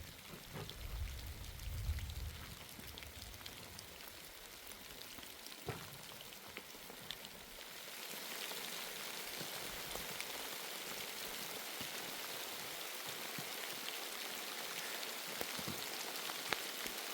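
Steady rain falling, with individual drops ticking sharply on a nearby surface; the downpour grows heavier about eight seconds in. A low rumble sits under it in the first two seconds.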